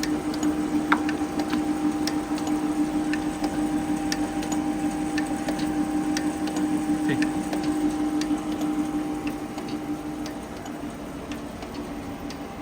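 Jones Shipman 540 surface grinder running with a steady hum, overlaid by irregular light clicks as the wheelhead's vertical micro-feed is worked by hand. The hum gets quieter near the end.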